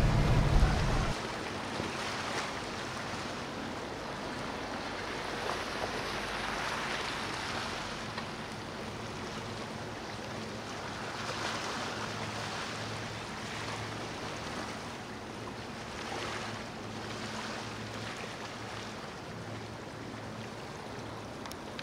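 Steady wash of water and wind with a faint low, pulsing throb of a boat engine. A louder low engine rumble cuts off about a second in.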